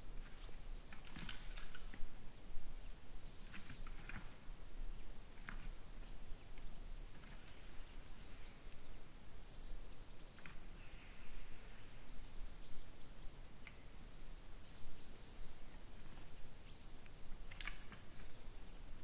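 Red deer stag rubbing its antlers against a sapling, with irregular knocks, clicks and scrapes of antler on wood. Short runs of high, repeated bird notes come now and then in the background.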